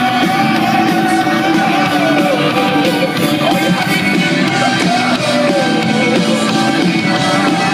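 Indie rock band playing live on stage, loud and dense throughout: electric guitars and drums, with a wavering melody line.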